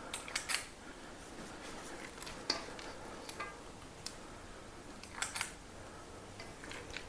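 Spring-loaded metal cookie scoop clicking as its squeeze handle works the release blade, scraping through sticky oat mixture in a stainless steel bowl. A few scattered sharp clicks, clustered near the start, about two and a half seconds in, and about five seconds in.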